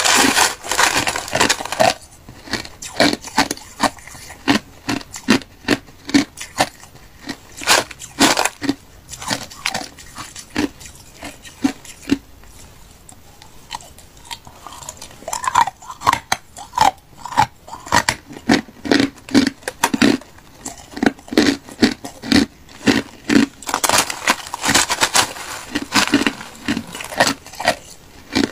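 Hard crushed ice being bitten and crunched between the teeth, close to the microphone, in a long run of sharp crunches that goes quiet for a few seconds around the middle. At the start a metal spoon scrapes and scoops through the crushed ice in a plastic tub.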